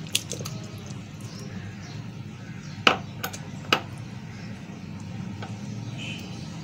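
Kitchen utensils clinking and knocking against a bowl and container as chopped pineapple is tipped into cream and spread with a spatula: a light click just after the start, then two sharper knocks about three and four seconds in, over a steady low hum.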